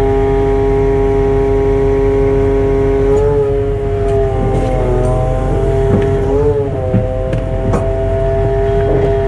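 Engine-driven hydraulic crane running with a steady whine over a low rumble, its pitch dipping and wavering a few seconds in as the cable drum is set down under load. A few sharp clinks follow near the end as the hook and sling are handled.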